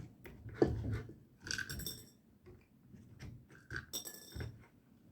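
Handmade wooden hydraulic excavator model being worked by hand: irregular short clinks, clicks and brief squeaks from its moving parts, in several separate bursts.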